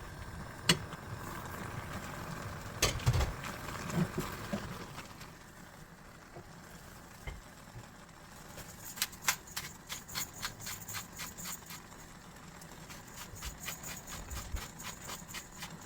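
Kitchen work sounds: a few scattered knocks and clatter, then from about halfway a run of regular light knocks, about three a second.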